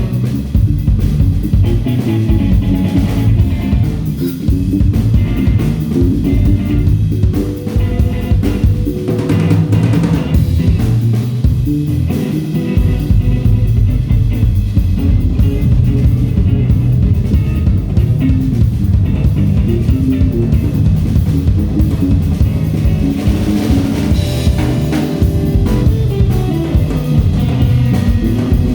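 Band music with a drum kit keeping a steady beat under guitar.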